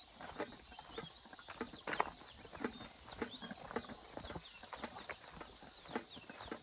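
A bird chirping over and over in short rising-and-falling notes, with irregular footsteps crunching underneath.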